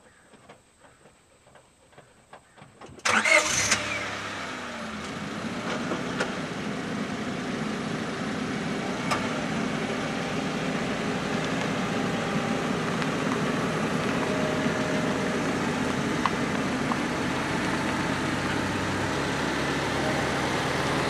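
Car engine starting about three seconds in, then running steadily.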